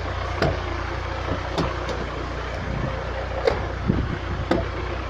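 UAZ Patriot engine idling steadily, with four short sharp clicks or knocks spread through it.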